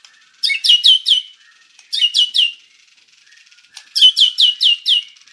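White-rumped shama (murai batu) singing: three bursts of rapid, high, sharply falling whistled notes, the last burst the longest.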